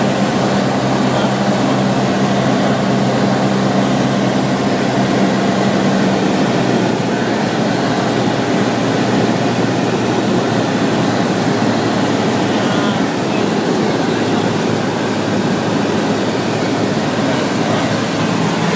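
Steady drone of a single-engine propeller aircraft's engine and propeller, heard inside the cabin. Its low hum changes about six seconds in.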